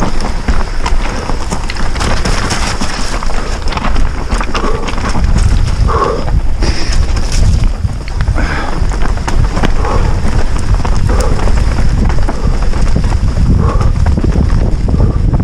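Orbea Rallon full-suspension mountain bike descending a rough, stony trail: a constant clatter of tyres crunching over loose stones and roots, with sharp knocks and rattles from the frame and chain. Heavy wind rumble on a helmet-mounted camera's microphone runs underneath.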